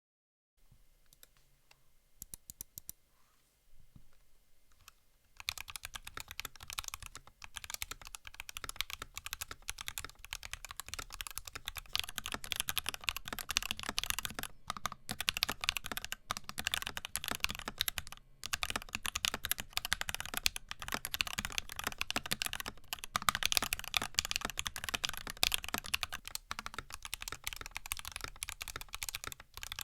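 NK65 mechanical keyboard with C3 Banana Split switches and PBT keycaps being typed on: a few scattered keystrokes for about the first five seconds, then steady fast typing with short pauses.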